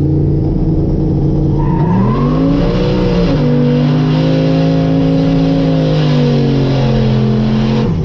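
Vehicle engine running loud, its revs climbing for about a second and a half, dropping back, then holding a steady drone for several seconds before falling off near the end.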